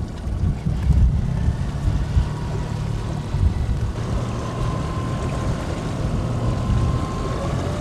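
Wind buffeting the microphone over water noise on a river boat, a steady low rumble. A faint steady tone joins about halfway through.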